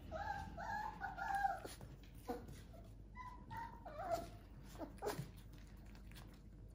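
Miniature dachshund puppies whimpering: a run of short high whines in the first two seconds and a few more, some wavering, around the middle, with the light clicking of claws on a wooden floor.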